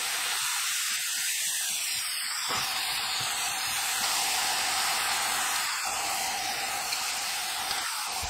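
Mushrooms and vegetables sizzling steadily in oil in a frying pan as they are stir-fried, with a few faint knocks of the spatula.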